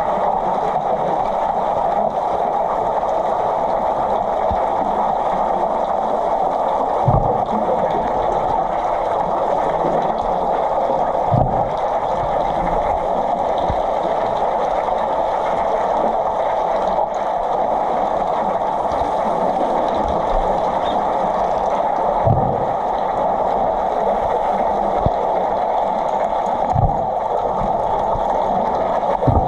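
Pool water heard from underwater: a steady muffled rushing noise, broken by a handful of short low thuds.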